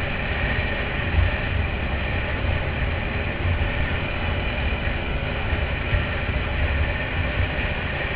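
Quad bike (ATV) engine running steadily while riding a dirt track at speed, heard from a camera mounted on the bike, with a heavy low rumble that rises and falls without a break.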